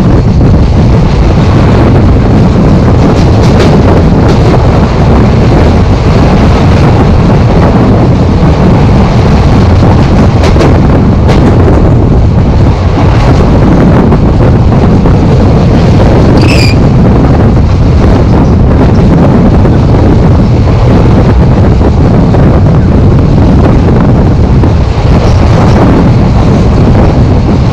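Wind buffeting a microphone held out of a moving passenger train, over the steady running noise of the coaches on the track. A brief high squeal comes about two-thirds of the way through.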